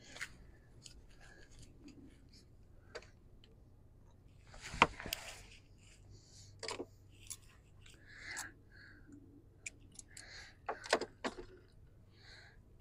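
Scattered clicks and rustling from hand tools and electrical wiring being handled, with a sharp snap about five seconds in and a quick cluster of clicks near the end.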